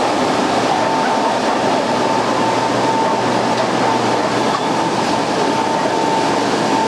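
Large ventilation fan running steadily: a constant loud whir with a steady high whine over it.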